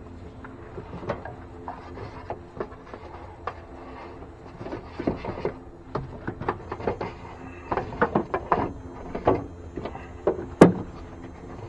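Heavy insulated power cable being fed and pulled through a truck's engine bay by hand, rubbing and knocking against rubber hoses and plastic, with one sharp click near the end. A steady low hum runs underneath.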